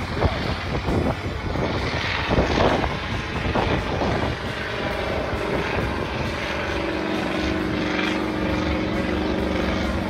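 Competition truck's engine working hard at high revs as it climbs a muddy trial hill. It is uneven at first, then holds a steady pitch for the last few seconds.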